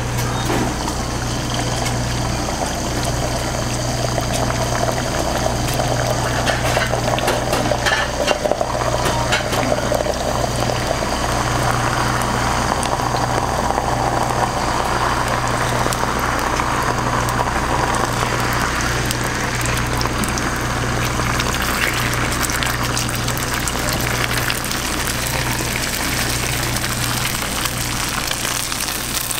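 Beaten egg sizzling and bubbling in a hot stainless-steel frying pan while chopsticks twist it into a tornado omelette, over a steady low hum.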